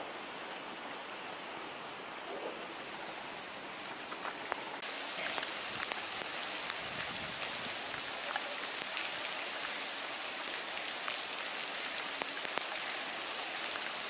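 Steady rain falling on floodwater: an even hiss with scattered drop ticks, growing louder and brighter about five seconds in.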